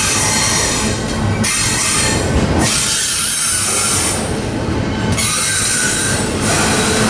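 CSX double-stack intermodal freight train passing close by: steel wheels rolling, rumbling and hissing on the rails, loud and steady. The high hiss swells and fades every second or two as the well cars go by.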